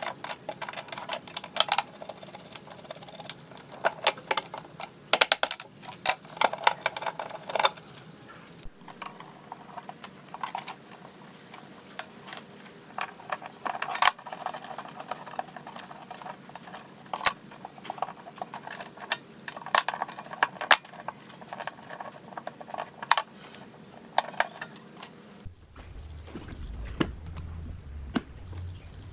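Irregular small metal clicks, taps and rattles as hands unfasten and pull jacks and connectors from a rusty steel amplifier back panel. About 25 seconds in it changes to a quieter low hum with a few faint clicks.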